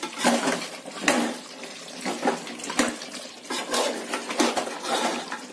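Steel spoon stirring thick meat qorma gravy in a steel pot as it fries: irregular scrapes and clinks of metal on the pot over wet sloshing and sizzling of the masala.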